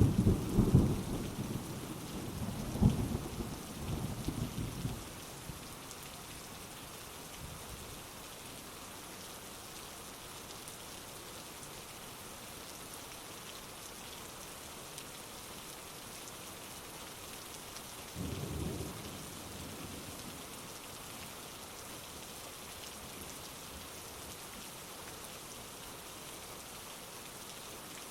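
Heavy rain falling steadily, with thunder cracking and rumbling over the first five seconds and a shorter, fainter rumble of thunder about eighteen seconds in.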